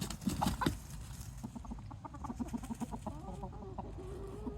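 Roosters clucking: a few sharp, louder clucks in the first second, then a long run of quick, low clucks.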